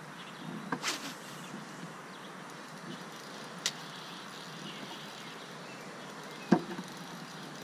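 Steady outdoor background noise on an open fishing boat while an angler casts and works a rod and reel. A few short clicks and knocks from the tackle and boat cut through it: a small cluster about a second in, a sharp click near four seconds, and the loudest knock about six and a half seconds in.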